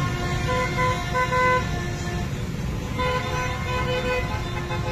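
Many motorbike and car horns honking in celebration, overlapping short toots over the steady rumble of a slow-moving stream of engines, with a short lull in the honking midway.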